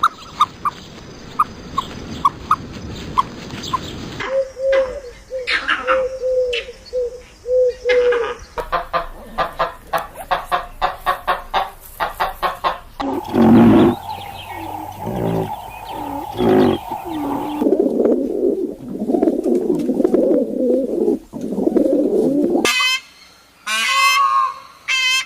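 Farm poultry calling in a series of short cuts: chickens clucking, with runs of short repeated calls and peeps, and several higher honking calls near the end.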